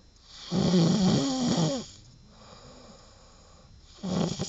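A sleeping man snoring with a loud, rattling snore of about a second and a half, then a quieter breath. A second loud snore begins near the end.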